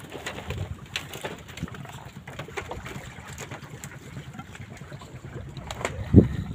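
Wind buffeting the microphone as a low rumbling haze, with scattered small clicks and one loud thump about six seconds in.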